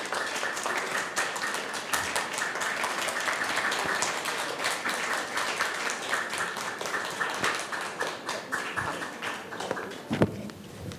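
Audience applauding, a dense patter of many hands clapping that dies away about ten seconds in.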